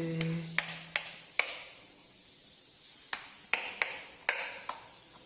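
Wall light switches being flicked on and off again and again: sharp plastic clicks in two runs, one in the first second and a half and another from about three seconds in, while the light fails to come on. A brief low hum sounds at the start.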